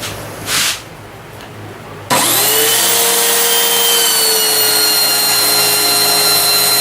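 A woodworking power tool's electric motor switches on about two seconds in, spins up within a fraction of a second and then runs at a steady high whine. It is preceded by a short scraping rub about half a second in. The sound cuts off abruptly at the end.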